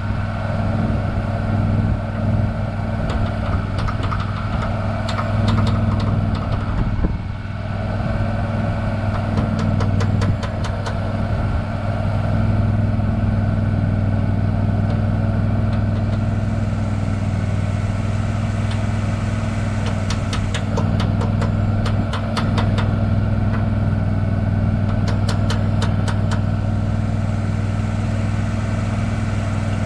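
An engine idling steadily with an even low hum. Bursts of rapid clicking come over it several times.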